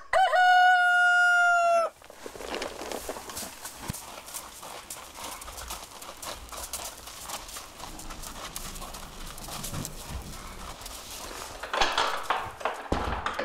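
A rooster crowing once, a loud held call of about two seconds that drops in pitch at the end. After it come quieter irregular knocks and shuffling, with a louder clatter about twelve seconds in.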